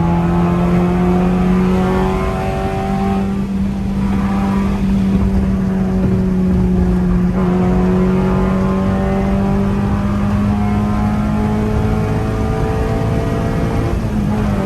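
Car engine running at high, fairly steady revs under load, heard from inside the cabin, its pitch easing slightly a couple of times and climbing back again, over steady road noise.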